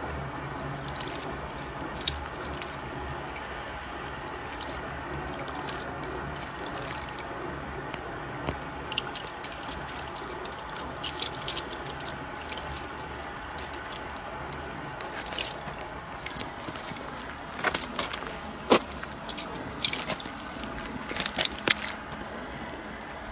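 Water dripping and splashing off a gill net as it is hauled hand over hand out of the water, with scattered short sharp splashes and clicks that come more often in the second half.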